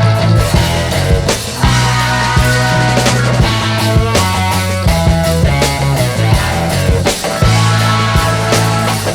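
Background rock music with a steady beat, guitar and a heavy bass line.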